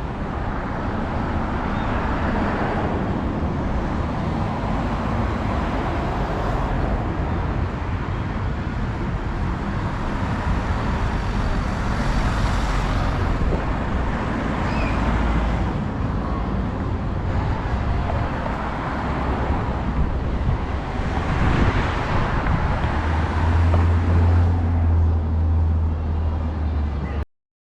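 Road traffic passing, with cars swelling up and fading every several seconds over a steady wind rumble on the microphone. A low engine hum sits under it for a couple of seconds near the end, then the sound cuts off suddenly.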